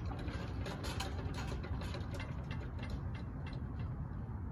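Wheels of a departing passenger train clicking over rail joints: a quick run of ticks, about four or five a second, that fades away over roughly three and a half seconds, over a low steady rumble.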